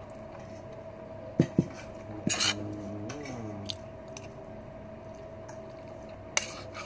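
Metal spoon clinking and scraping against a plate a few times while scooping food, over a steady faint hum.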